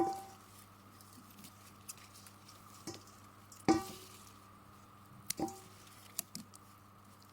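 Small potatoes dropped into a hollow container: five or six sharp knocks a second or so apart, each with a brief ringing tone, the loudest near the start and a few seconds in.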